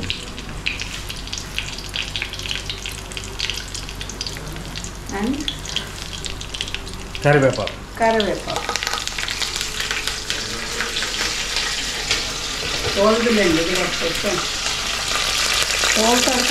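Whole spices and dried red chillies sizzling and crackling in hot oil and ghee in an aluminium pan, the tempering for a pulao; the sizzle grows louder in the second half after curry leaves are dropped in.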